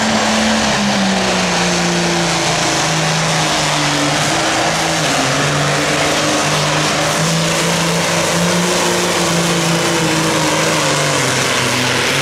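Turbocharged diesel engine of a John Deere classic super stock pulling tractor running flat out under load while dragging a weight sled. The engine note dips slightly about a second in, then holds a loud, steady drone.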